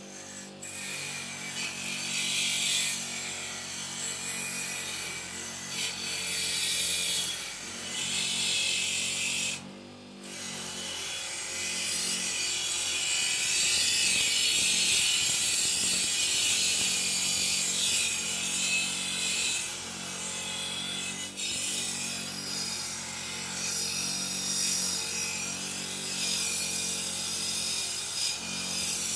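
Abrasive scrubbing on the rusty steel of a bayonet scabbard, heard as a harsh, rough hiss that stops briefly about ten seconds in, then resumes.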